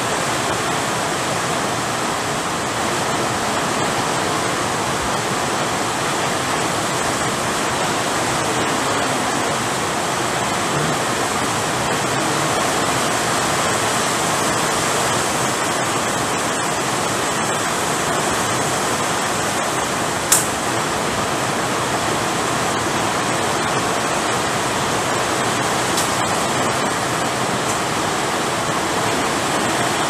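Heavy rain falling steadily: a dense, even hiss, with one sharp click about twenty seconds in.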